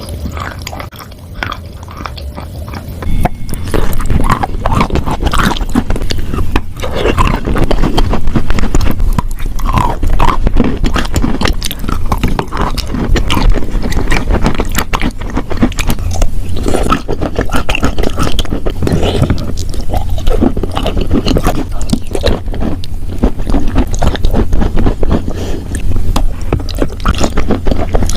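Close-miked chewing and crunching of chalk and clay: dense, irregular crackling crunches, much louder from about three seconds in.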